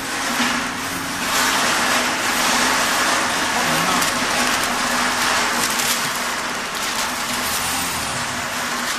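Hydraulic heat press running: a steady low hum under a loud, even hiss that grows louder about a second in, with a few light clicks.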